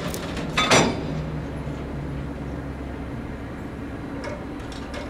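Train at a station running with a steady low rumble, with one loud metallic clank about a second in and a few lighter clicks near the end.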